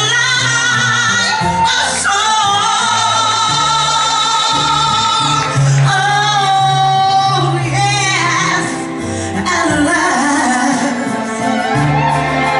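A woman singing a soul ballad live over a band with organ and bass, drawing out long held notes with a wide vibrato.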